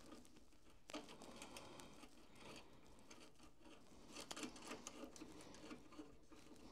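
Faint clicks and rustling of fingers handling crimped wire terminals and threading a small nut onto a terminal stud by hand.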